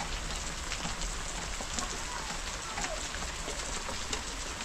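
Steady rain falling, with many individual drops striking close by.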